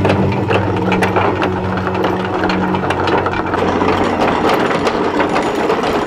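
Anchor windlass running with the anchor chain clattering through it, a fast, uneven stream of metal clanks.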